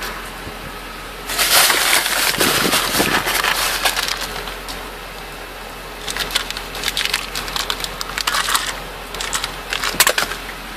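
Clear plastic container crinkling and crackling as it is handled close to the microphone, in two stretches of dense crackles, the first starting about a second in and the second about six seconds in.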